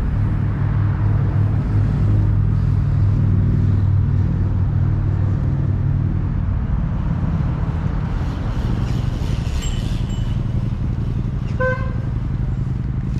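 Steady low drone of motor vehicle engines. A brief horn toot comes about a second and a half before the end.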